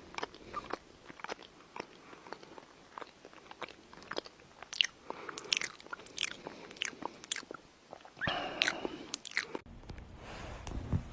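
An animal crunching and chewing food: many short, irregular crunches. Near the end the sound cuts off abruptly to a quieter background with a low hum.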